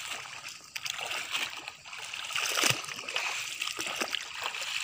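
Bare feet wading through shallow lake water among lotus leaves, with irregular splashing and sloshing steps.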